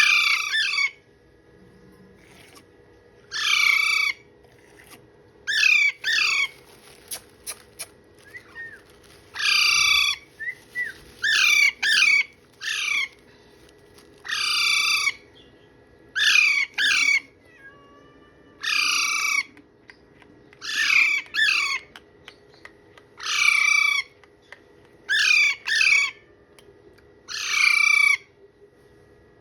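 Parrot squawking: a long run of harsh, loud calls, each under a second and falling in pitch, repeated every second or two.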